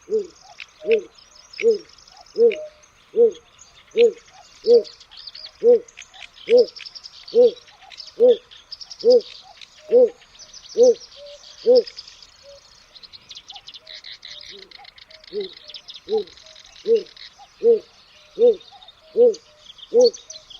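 A heron-family bird giving a low hooting call, repeated evenly a little faster than once a second in a long run, pausing for a few seconds midway and then starting again. Smaller songbirds chirp and trill higher up behind it.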